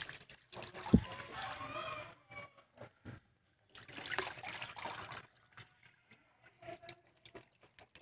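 Wash water being poured off soaked wheat grains from a plastic tub into a drain, in two splashing pours about a second and about four seconds in. A sharp thump comes about a second in, the loudest sound here.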